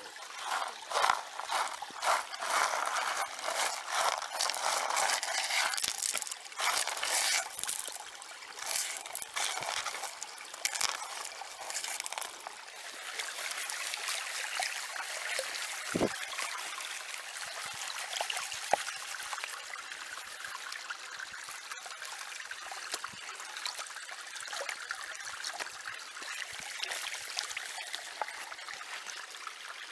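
Water sloshing and splashing in a plastic gold pan as it is swirled and dipped in a shallow creek, in irregular surges for the first dozen seconds, then giving way to the steady trickle of the creek. One soft knock about halfway through.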